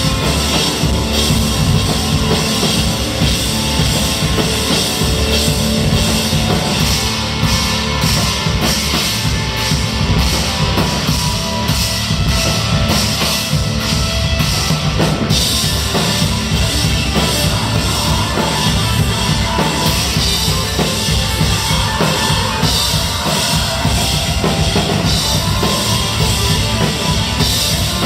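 Live post-hardcore rock band playing loud and without a break, driven by a drum kit with kick, snare and cymbals. The cymbal pattern changes about halfway through.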